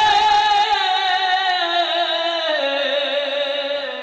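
Male reciter's voice singing one long held note of a devotional kalam into a microphone, with a slight waver; the note slides down in pitch about halfway through and fades near the end.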